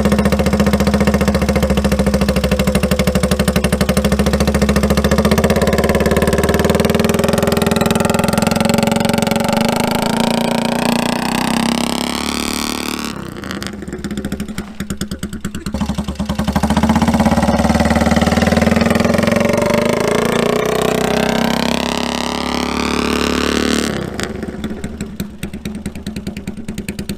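Mini bike's small gasoline engine running loud, its pitch rising and falling with the throttle. It eases off around 13 seconds in, picks up again a few seconds later, and drops back to a lower, quieter run about three seconds before the end.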